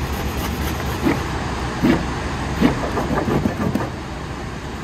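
Bar of surf wax rubbed across a skimboard's deck in a series of short strokes, over a steady low rumble of wind on the microphone.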